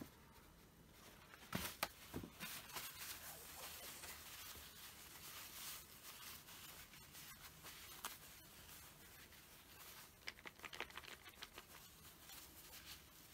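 Soft rustling of a paper tissue as a small plastic squeeze bottle is wiped by hand, with two sharp knocks about two seconds in and a run of small clicks near the end.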